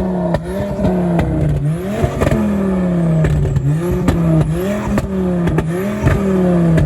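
Turbocharged Ford Focus ST engine revving up and down over and over, with sharp clicks and crackles breaking in between the rises.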